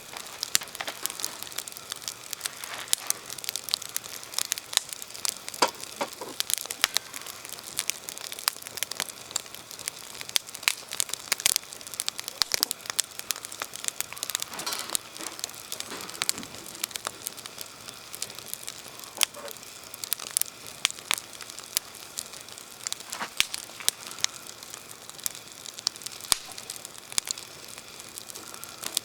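Wood fire crackling, with many sharp irregular pops and snaps.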